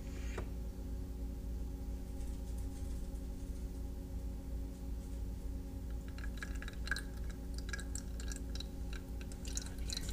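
Steady low electrical hum with a few faint steady tones above it. From about six seconds in come light clicks and taps of kitchen items being handled.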